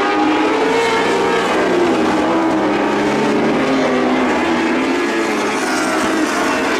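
Engines of several lightning sprint cars running together in a dirt-track race, their overlapping pitches rising and falling.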